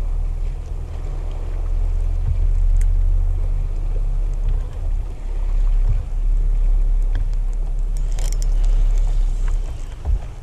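Wind buffeting the camera microphone: a steady low rumble, with a few faint ticks.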